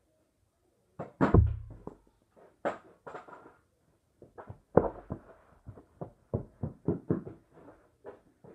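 Thumps and knocks of a child moving on a carpeted floor: one heavy thump about a second in, then from the middle a quick run of running footsteps, about three a second.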